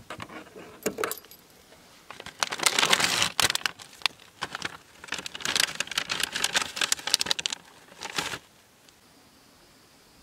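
Rustling and crinkling of bedding and belongings being handled inside a car, in two bouts of a second or two each with small clicks and clinks.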